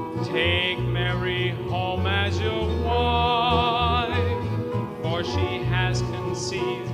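Worship song: a singer holds notes with a wide vibrato over a bass line and instrumental accompaniment.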